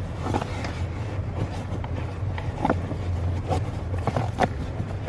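Small clicks, knocks and rustles from a hood release cable being handled and fed back through its route, over a steady low hum.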